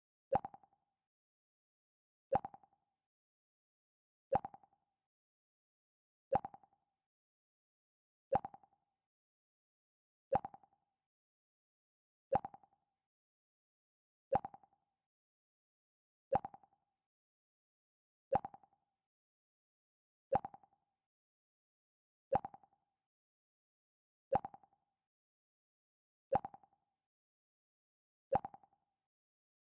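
Mac OS X 'Pluck' alert sound played over and over, a short plucked tone about every two seconds, each one sharp at the start and dying away quickly, with silence between.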